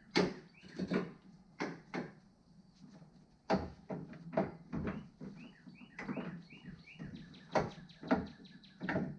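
Irregular knocks and clanks of hand tools against steel suspension parts, heard while the front suspension is being taken apart. A bird chirps faintly in the background, a run of short rising chirps in the middle.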